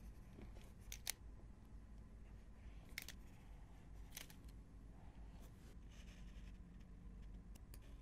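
Near silence: room tone with a few faint, short clicks scattered through it.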